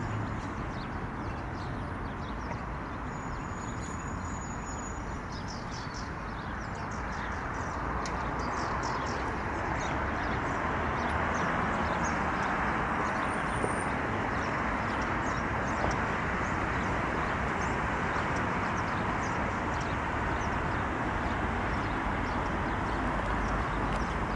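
Many short, high chirps from small birds, scattered throughout over a steady, broad rushing background noise.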